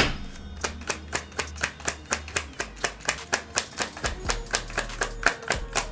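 Deck of oracle cards being shuffled by hand: a sharp card snap at the start, then a quick, even run of card clicks about five a second. Faint background music underneath.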